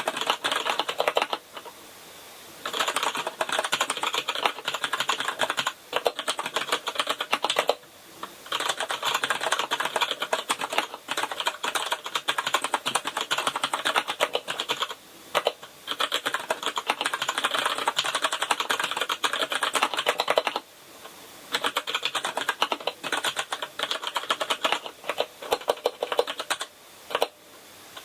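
Fast, continuous typing on a Kinesis Advantage ergonomic keyboard with brown (tactile) mechanical switches: a dense stream of key clicks with brief pauses of about a second every several seconds.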